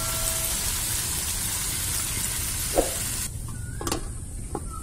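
Long beans frying in a wok sizzle loudly as water is poured onto them. A little over three seconds in, a steel lid goes on and the sizzling cuts off abruptly, followed by a few light metallic clinks of the lid and the small bowl on top of it.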